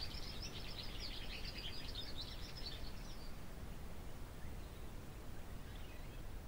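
Rapid high chirping of birds over a steady low rumble of outdoor ambience; the chirping fades out about three seconds in, leaving the rumble.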